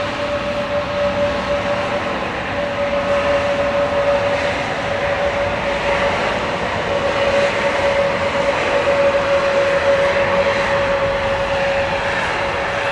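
Airbus A320neo's Pratt & Whitney PW1100G geared turbofan engines running at low power as the airliner rolls along the runway after landing: a steady high whine over a rushing engine noise.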